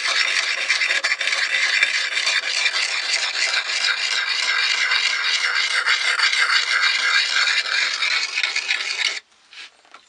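Silicon carbide sharpening stone rubbed in small circles against the inside bevel of a steel half-round scorp: a steady scraping of stone on steel that stops abruptly about nine seconds in, followed by a few faint taps.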